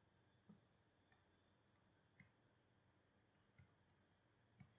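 High-pitched cricket trill, pulsing rapidly and without a break, with a few faint soft taps.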